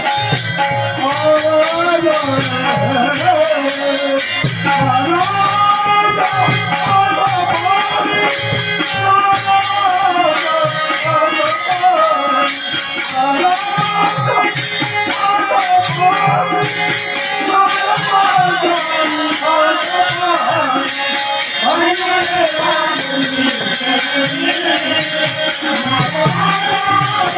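Women's bhajan group singing a Marathi abhang, the melody carried in unison over a fast, steady jingling rhythm of hand percussion and a drum.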